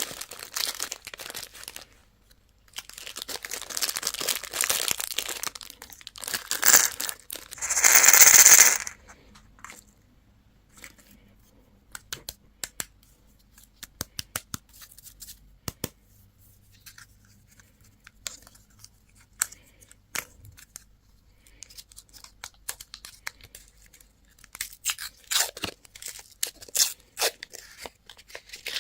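Candy wrapper packaging crinkling and being torn open, with the loudest long tear about eight seconds in. Scattered small clicks and taps of handling follow, growing busier near the end.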